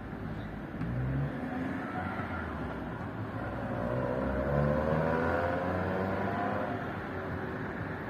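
A motor vehicle engine passing and accelerating, its pitch sliding as it goes by, loudest around the middle, over steady street noise.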